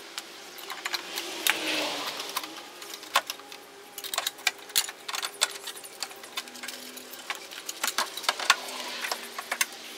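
Hand tools clinking and clicking against metal engine parts while working on fasteners: many sharp, irregular clicks, with a few soft rustling swells between them.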